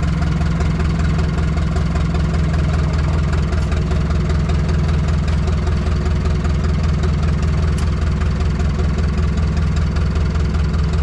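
An engine idling steadily, a low, even drone that does not change.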